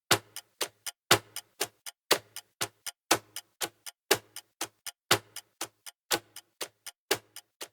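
Clocks ticking steadily: a louder tick about once a second, with lighter ticks in between, about four ticks a second in all.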